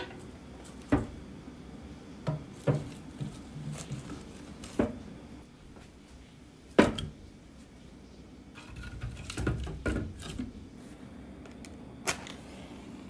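Split firewood knocked and stacked into the firebox of a cast-iron wood stove: a series of sharp wooden clunks at uneven intervals, the loudest about seven seconds in, with a busier shuffle of wood around nine to ten seconds.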